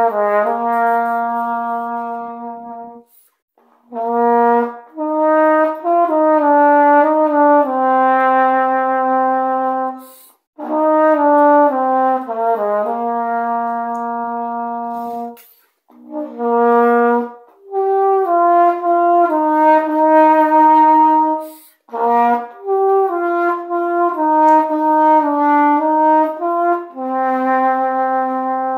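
Yamaha YAH-201 E-flat tenor horn played solo: a slow melody in several phrases, with short pauses for breath between them.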